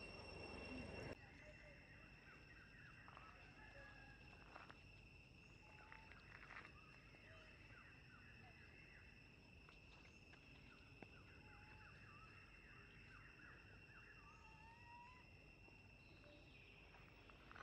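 Faint outdoor ambience: a steady high-pitched insect drone with scattered short bird chirps. A louder rush of low noise cuts off about a second in.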